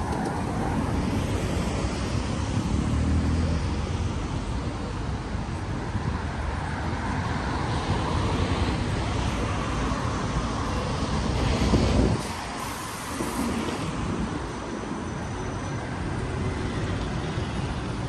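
Street traffic: a city bus's engine rumbles close by amid passing cars and tyre noise. The rumble is loudest until about twelve seconds in, then falls away.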